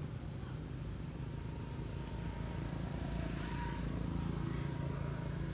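A steady low engine rumble that swells slightly in the second half, like a motor vehicle running.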